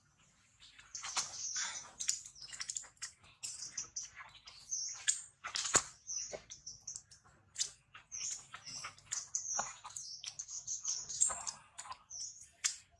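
Small birds chirping in the surrounding trees: a busy string of short, high-pitched calls, one after another, with a few sharper, louder calls mixed in.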